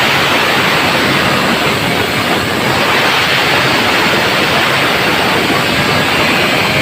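Chainsaw running at full throttle, heard as a steady loud hiss-like noise with no clear engine note.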